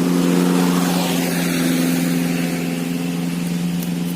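A motor vehicle engine running steadily, with a broad rush of noise that swells about a second in and slowly fades away.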